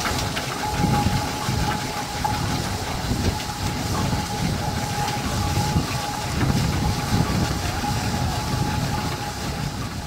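Steam ploughing engine working, with repeated uneven exhaust beats over a steady high whine.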